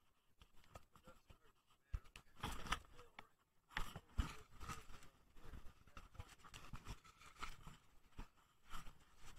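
Handling noise of a camera being moved and covered: irregular scraping, rustling and rubbing with short knocks, busier from about two seconds in.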